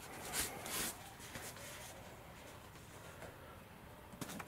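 Two short rustles from handling the foil-covered wing cover in the packing crate, about half a second apart, followed by faint room tone.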